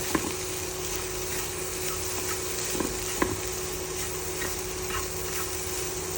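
Chicken, scrambled egg and carrot sizzling in a hot pan while being stir-fried, with a few sharp knocks of the spatula against the pan.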